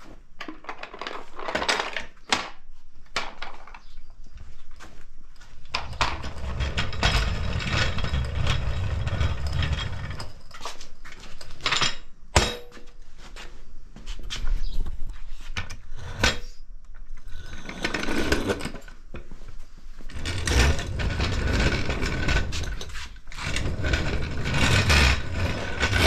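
Aluminum floor jack on large phenolic caster wheels rolled back and forth across a concrete floor by its handle: a rumble of the wheels on the concrete, heaviest in two stretches about six and twenty seconds in, with many clicks and rattles from the jack frame and handle and one sharp knock about twelve seconds in.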